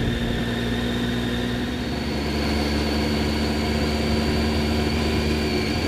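Triumph Street Triple 675's inline three-cylinder engine pulling steadily at low revs in fourth gear at low road speed, picking up from almost a standstill. It gets slightly louder about two seconds in.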